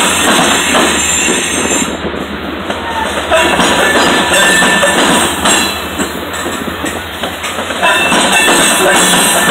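Covered hopper cars of a freight grain train rolling past close by: steady wheel-on-rail rumble with clicking over the rail joints and thin, high wheel squeals that come and go.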